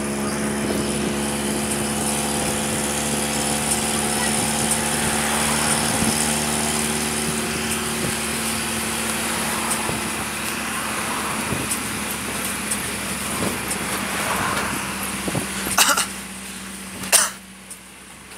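Tourist road train on the move: a steady engine hum with road and wind noise. Two sharp knocks come near the end.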